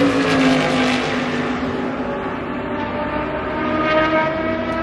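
Race car engine passing at speed, its note dropping as the car goes by, then holding steady and rising a little near the end.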